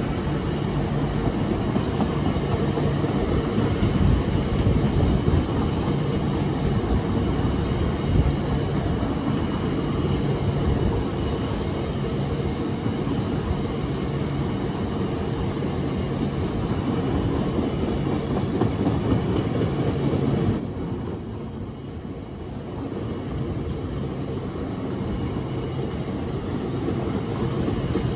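Train running close by: a steady, loud rumble with a faint engine hum and some rail noise, dipping briefly about twenty seconds in.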